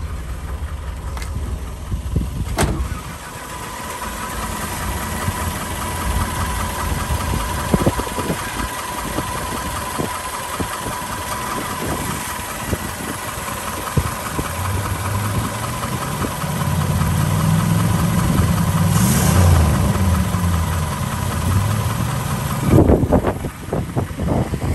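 1976 Pontiac Astra's small four-cylinder engine idling steadily, with a single sharp knock about two and a half seconds in. The engine is louder and clearer in the later part.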